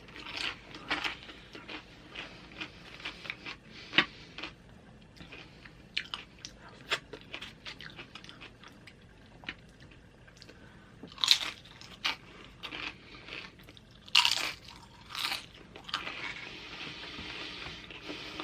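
Close-up chewing and crunching of loaded nachos: tortilla chips cracking between the teeth, with a few louder crunches past the middle.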